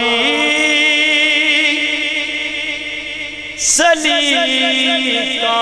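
A man's voice singing long drawn-out, wavering notes of a devotional kalam into a microphone, the opening of a sung recitation. A little after halfway, a short hiss breaks the line and he takes up a new held note.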